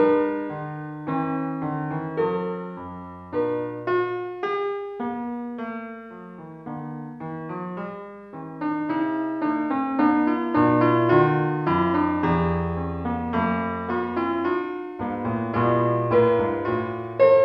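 Piano music: a steady run of struck melody notes over lower bass notes that are held for a second or two.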